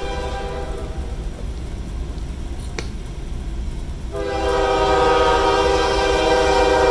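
Diesel freight locomotive's air horn sounding for a grade crossing as the train approaches: a chord of several notes that ends within the first second, then a long, louder blast starting about four seconds in, over a steady low rumble.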